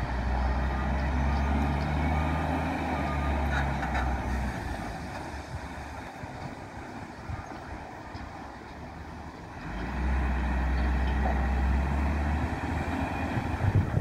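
Diesel engine of a container reach stacker working hard, loud for the first few seconds, easing off, then pulling hard again about ten seconds in. Its reversing alarm beeps in short repeated dashes early on.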